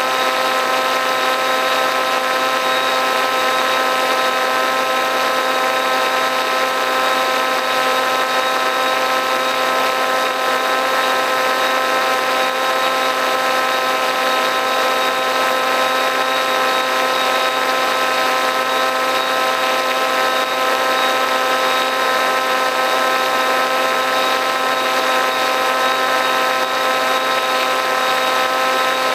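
RC plane's motor and propeller running at a steady throttle in flight, a loud, even whine with rushing air noise, picked up by the camera mounted on the plane.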